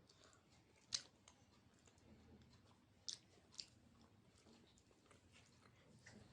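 Close-up chewing of a meal of rice, daal and fried vegetables, soft and quiet, with three sharp wet mouth clicks: one about a second in and two around three seconds in.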